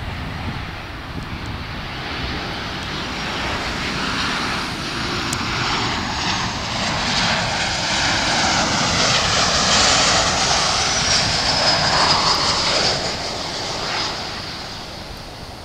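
Boeing 737-700 airliner's CFM56-7B turbofan engines on landing approach, flying past low. The jet noise builds to a peak about ten to twelve seconds in, with a high fan whine that slides down in pitch as it passes, then fades.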